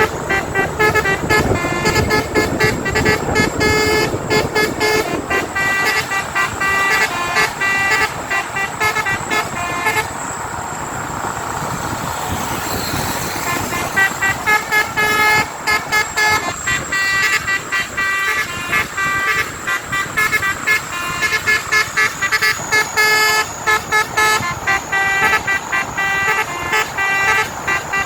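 Basuri telolet multi-tone vehicle horn playing a quick tune of short pitched notes. It breaks off about ten seconds in and starts again about four seconds later.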